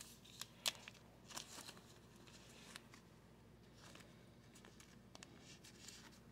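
Faint clicks and rustles of chrome trading cards being shuffled in the hands, one card slid to the back of the stack, with the sharpest tap about a second in.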